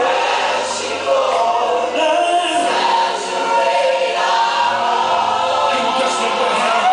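Gospel choir singing a held worship chord, several voices together.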